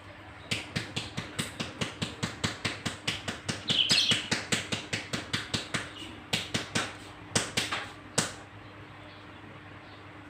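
Rapid rhythmic tapping, about four sharp strikes a second for several seconds, then a few scattered strikes near the end. A brief high chirp sounds about four seconds in.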